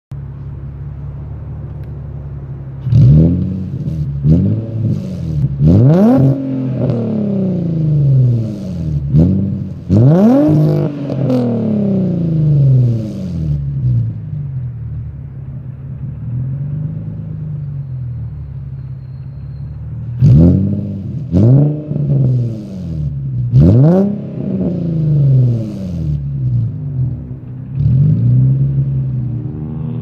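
Nissan 350Z's 3.5-litre V6 through a cheap aftermarket cat-back exhaust, loud, idling and then revved in quick throttle blips that each jump up and fall back to idle. The blips come in two sets, the first from about three seconds in and the second from about twenty seconds in, with steady idle between.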